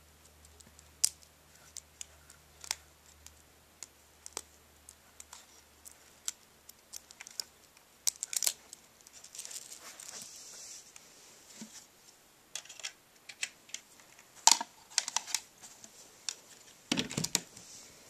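Irregular sharp clicks and taps of cable plugs and cords being handled and pushed into a black plastic external hard-drive enclosure, with a louder cluster of handling noise near the end.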